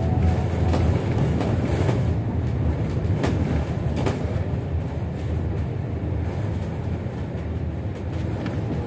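Bus cabin noise while riding in slow traffic: a steady low rumble of engine and road, with a few sharp knocks in the first half.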